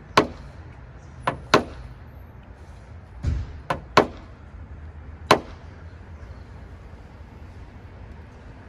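A series of sharp knocks or taps, about seven in the first five seconds, unevenly spaced, some in quick pairs.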